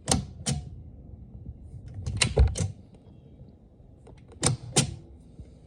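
Sharp mechanical clicks in three quick groups: two at the start, three a little after two seconds, two more past four seconds.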